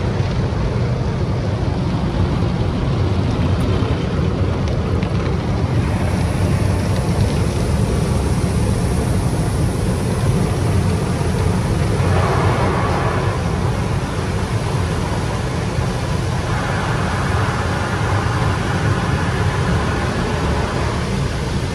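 Automatic car wash heard from inside the car: water jets spraying and sheeting over the windshield and body, over a steady low rumble. The spray gets heavier and brighter about six seconds in.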